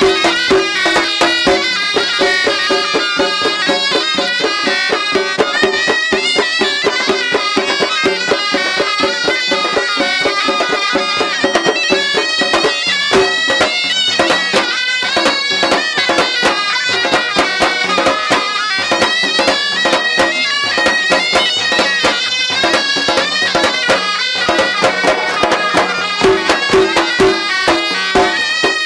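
An idebbalen troupe playing: two ghaita shawms playing a reedy, nasal melody together over quick, steady beats of a double-headed tbel drum.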